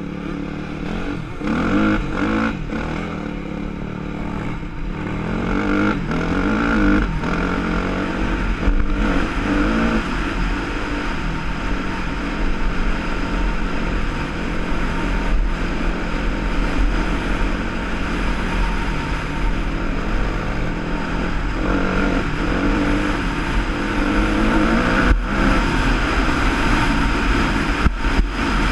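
Yamaha YZ250F four-stroke single-cylinder dirt bike engine pulling hard under way, its revs rising and falling with gear changes over the first several seconds, then held more steadily at speed. Wind rumbles on the microphone throughout.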